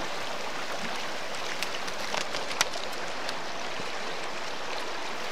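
Steady rushing of a fast river's current, with a few faint clicks and taps around the middle.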